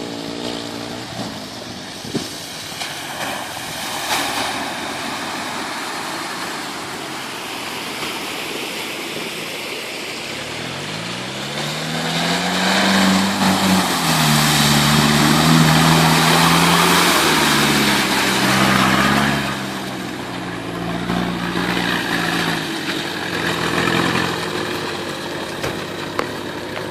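Nissan Terrano SUV engine running, then revving up sharply about ten seconds in. It holds high revs under load for several seconds, then drops back to a lower, uneven run with a brief smaller rev near the end.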